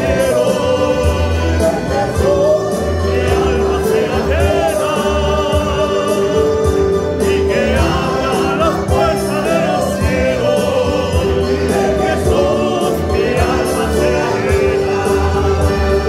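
Church choir singing a praise chorus in wavering sustained voices, over band accompaniment with a steady bass line and a regular beat.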